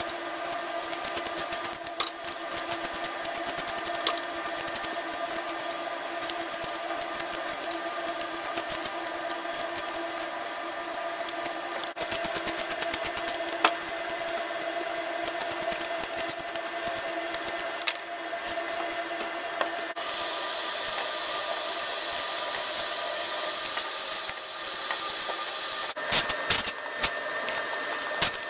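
Vegetable peeler scraping the skin off raw potatoes in rapid strokes, over a steady mechanical hum. Near the end a few knocks as potato pieces go into a metal saucepan.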